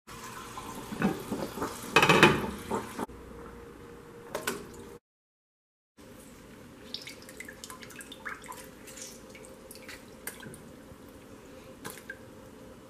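Water and cookware sounds at a stockpot: a loud burst of clatter and splashing in the first three seconds. After a second of silence, a lemon half is squeezed over the pot of water, with juice dripping and small splashes and clicks.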